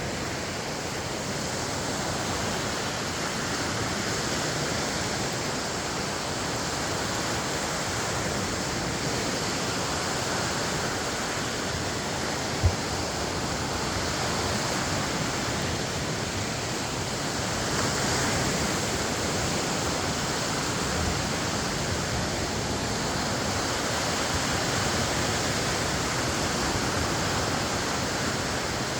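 Lake Michigan waves washing on the shore, a steady rush of water noise with slight swells. A single short low thump stands out about thirteen seconds in.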